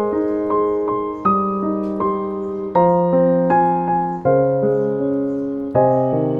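Background piano music: chords struck about every second and a half, each ringing and fading, with lighter single notes between.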